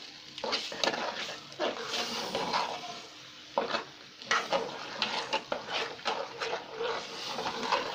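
Metal spoon stirring and scraping a thick, frying halim mixture in an aluminium pot: irregular scrapes and clinks against the pot, with a faint sizzle underneath.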